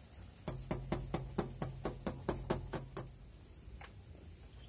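A quick run of about a dozen knocks on a glass window pane, about five a second, then one more knock a moment later, trying to rouse someone inside to open up. Crickets keep up a steady high trill behind it.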